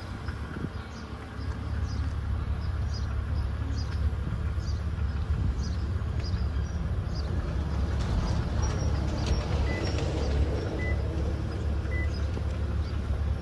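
BMW Z4 3.0si's straight-six engine idling with a steady low rumble that grows louder about a second and a half in. Three short, evenly spaced beeps sound near the end, over high chirping.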